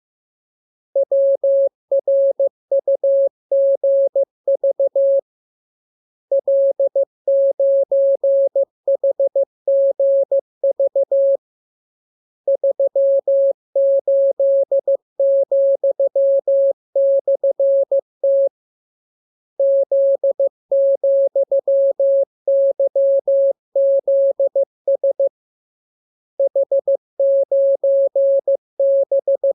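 Morse code (CW) practice transmission: a single steady tone keyed on and off in rapid dots and dashes. It comes in groups of characters separated by pauses of about a second.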